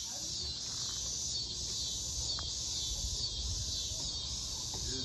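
Steady, high-pitched chorus of chirping insects over a low background rumble.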